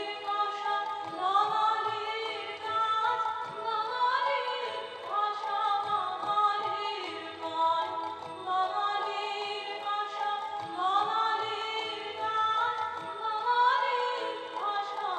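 Background music with sung melody, a female voice or voices holding and gliding between notes in an Indian classical style.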